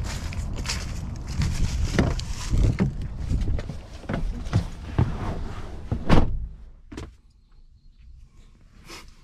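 Footsteps and handling thumps over a low wind rumble, ending a little after six seconds in with a loud slam of a vehicle door, after which it is quiet with a couple of faint clicks.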